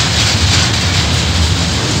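Loaded coal wagons of a KiwiRail freight train rolling past: a steady, loud rumble of wheels on rail with a hiss above it.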